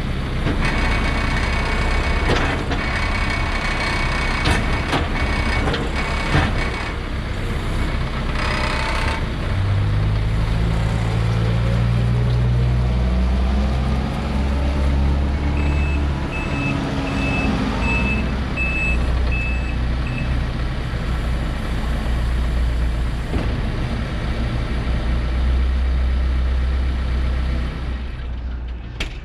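Case 590 Super N backhoe loader's diesel engine running, its pitch rising and shifting under load partway through. A reverse alarm beeps steadily for about five seconds near the middle.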